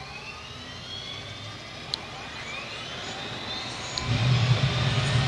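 T-80BVM tank's gas turbine engine starting: a rising whine as the turbine spools up, a click about two seconds in, then about four seconds in a louder low rumble as the engine lights and runs.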